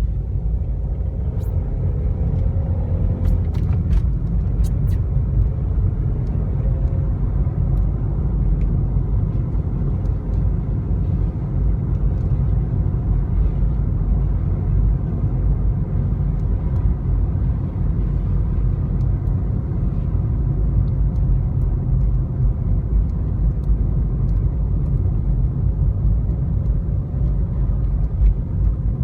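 Car driving, a steady low rumble of engine and road noise, with a few faint ticks in the first few seconds.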